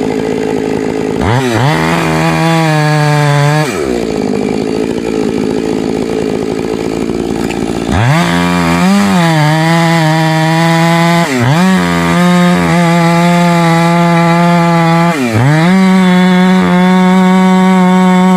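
Modified professional chainsaw with a long bar and full-comp chain cutting into a large tree trunk at high revs. It revs up into the cut about a second in, eases off near four seconds, goes back in around eight seconds, then the engine pitch dips under load and recovers several times.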